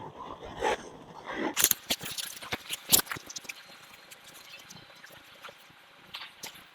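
Irregular rustling and light clicks of handling, with sharper clicks about one and a half and three seconds in, growing fainter toward the end.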